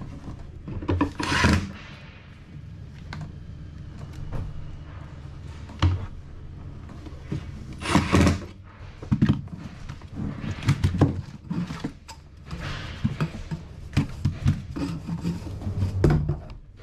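Irregular knocks, thuds and clatter from handling tools and parts during installation work, with two longer scraping or rasping noises about a second in and about eight seconds in, over a low steady hum.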